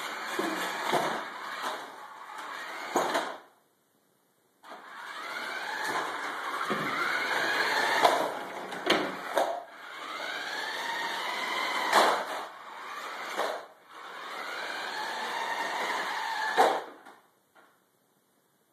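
Electric drive motor and gears of a small RC truck chassis whirring as the robot drives, stops and reverses. The whine rises and falls in pitch with each run and breaks off for about a second early on. Sharp clicks and knocks come now and then, and the sound stops shortly before the end.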